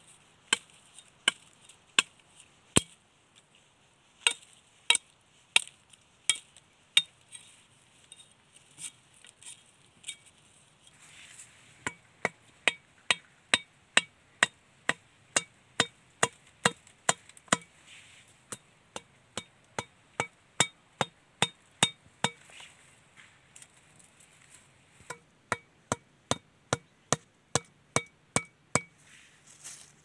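Repeated sharp knocks of a machete's back striking the top of a bamboo stake, driving it into the ground. The strikes are scattered at first, then come in a steady run of about two a second. After a short pause, another run follows near the end.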